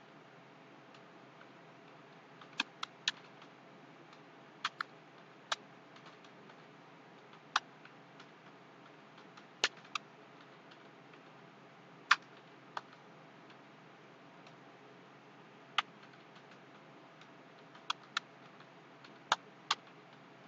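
Scattered single computer-keyboard key clicks, about sixteen at irregular intervals, some in quick pairs, over a faint steady hiss.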